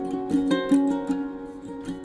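Background music: a plucked string instrument picking out a melody of single notes.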